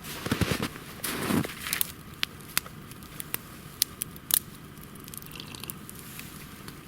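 Footsteps crunching in snow for the first second and a half, then a wood campfire crackling, with about half a dozen sharp pops over the next few seconds.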